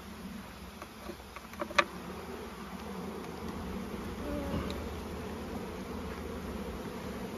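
Steady buzz of a crowded honeybee colony swarming over an open brood box, the bees stirred up and hectic. A couple of sharp clicks about two seconds in come from the metal hive tool prying at the wooden frames.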